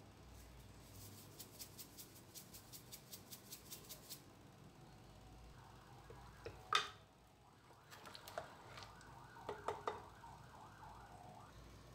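Wooden spoon working curry in a pressure cooker pot: a fast run of faint ticks, about six a second, that stops about four seconds in, then one sharp knock on the pot about seven seconds in, followed by light clinks and scraping.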